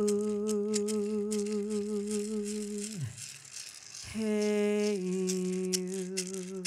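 A voice singing long held notes with a slight vibrato; the first note slides down and fades about three seconds in, and a new note begins a second later, then steps lower and is held. A hand rattle is shaken in loose, uneven strokes underneath.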